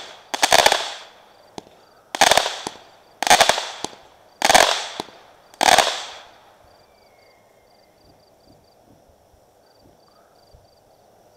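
Aerial fireworks going off: five loud sharp bursts about a second apart, each fading quickly, then stopping a little past halfway.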